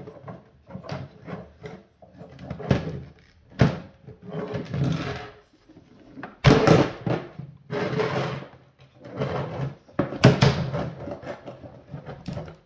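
A car side-mirror frame and folding-motor assembly being handled and turned over in the hands: irregular clicks and knocks of hard plastic parts, with a few longer scraping and rubbing stretches.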